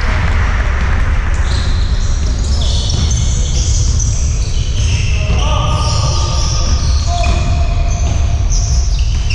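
Basketball game in a sports hall: many short, high-pitched sneaker squeaks on the court floor, a ball bouncing, and players' voices, over a steady low hum.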